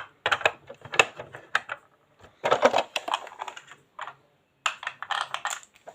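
Hard plastic parts of a toy garbage truck clicking and rattling in several quick bursts as a piece is pulled and pried at by hand.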